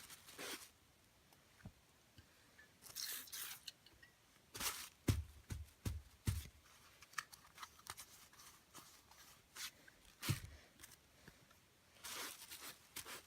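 Handling noise as WD-40 is worked into rubber RC car tires: intermittent rubbing and rustling, with a few knocks about five to six seconds in and another one near ten seconds.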